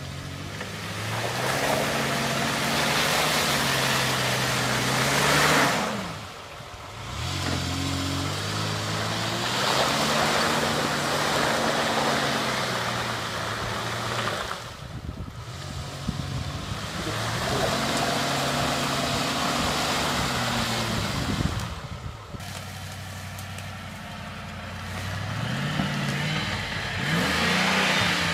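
Mitsubishi Pajero 4x4's engine revving under load as it crawls through deep mud ruts, its note rising in long surges and easing off sharply three times before climbing again.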